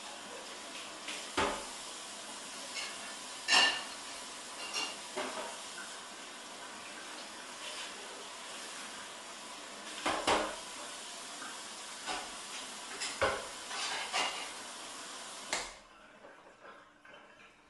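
Scattered clinks and knocks of a knife and metal utensils against a steel work table, a few with a brief metallic ring, over a steady hiss of room noise that drops away near the end.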